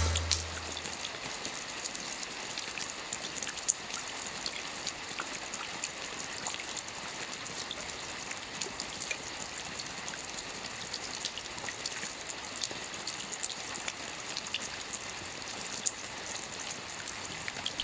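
Steady rain falling: an even hiss with scattered single drops tapping.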